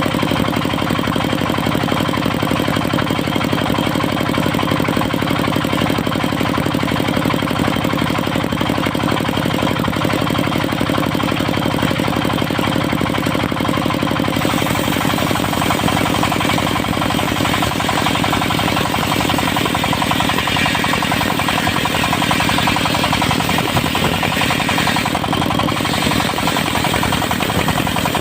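Diesel engine of a portable circular-saw sawmill running steadily with a rapid knocking beat. About halfway through, a harsher hissing noise joins it: the blade cutting through a mahogany log.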